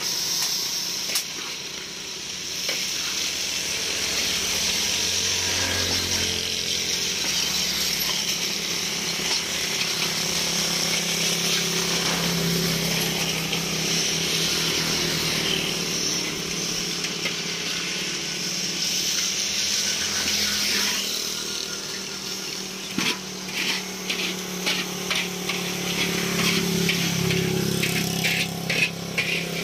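Metal spatula stirring and scraping a sticky puffed-rice (maronda) mixture around a large iron karahi, over a steady hiss and low hum. Near the end comes a run of sharper scraping strokes.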